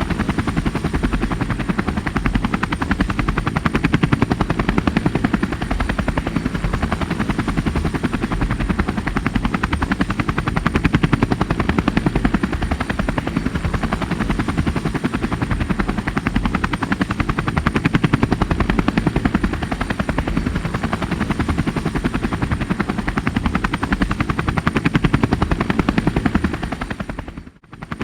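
Helicopter running steadily, its rotor blades beating in a fast, even chop over the engine's drone. The sound dips briefly and comes back about a second before the end.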